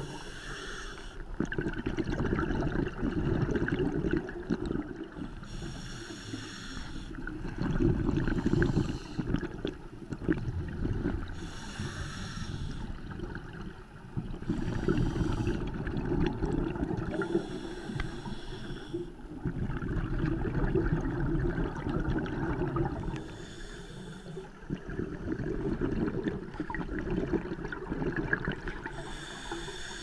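Scuba diver breathing through a regulator underwater: a short hissing inhale every few seconds, each followed by a longer low gurgling rush of exhaled bubbles.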